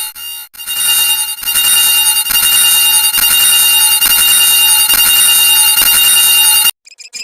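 Carl Wheezer's "croissant" voice clip, sped up and stacked so many times that it has merged into a loud, steady, high-pitched ringing chord with no words left. It grows denser in a couple of steps and cuts off suddenly near the end.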